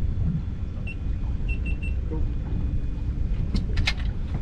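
A steady low rumble, with four short high electronic beeps about a second in and a quick cluster of sharp knocks a little before the end.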